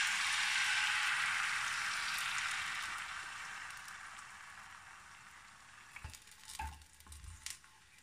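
Liver-pancake batter sizzling as it is poured into a hot, oiled cast-iron frying pan; the sizzle is loud at first and dies down steadily over about six seconds. A few light knocks near the end.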